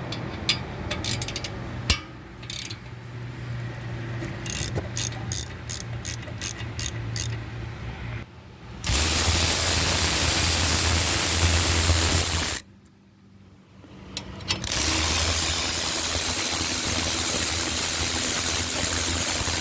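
Ratchet clicking in irregular runs while a 9mm Allen bit works a brake caliper bolt loose. This is followed by two long, loud, steady mechanical runs of about four and five seconds, split by a short quiet pause.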